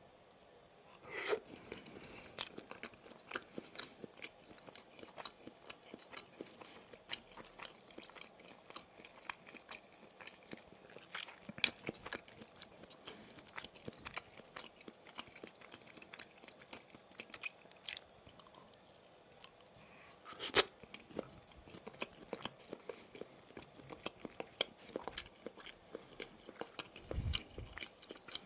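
Close-miked chewing of Maxbong sausage bars: a run of small, irregular chewing clicks with a few louder bites, about a second in, near the middle and about two-thirds of the way through.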